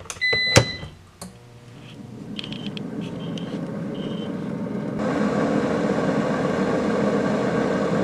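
Air fryer oven door clicking shut with a short electronic beep, then its convection fan starting up and running with a steady hum, louder from about five seconds in.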